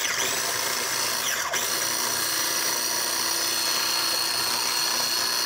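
Small electric food chopper's motor starting abruptly and running continuously at a steady speed, its blades chopping vegetables with olive oil in the plastic bowl.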